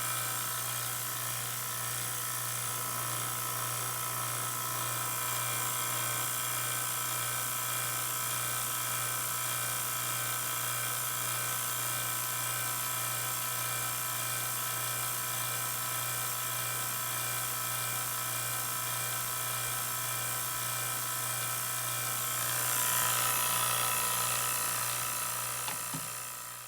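Electric vacuum pump running steadily with a hum and a high whine as it draws air out of a sealed glass jar of water. About 22 seconds in it swells with a louder hiss, and it fades out at the end.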